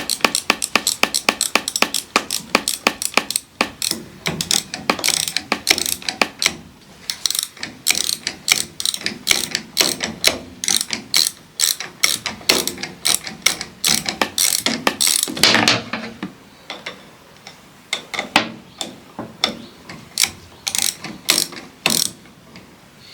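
Ratchet socket wrench clicking in quick runs of about five clicks a second as it turns bolts on a farm topper's gearbox, pausing briefly about two-thirds of the way through.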